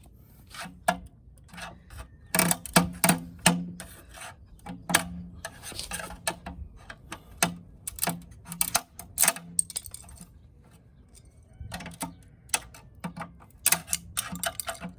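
An old hubcap being pried and broken off a car wheel: runs of sharp clicks, cracks and clatters in bursts, with a short lull about two-thirds of the way through. The hubcap is brittle and dry rotted, so it breaks apart easily.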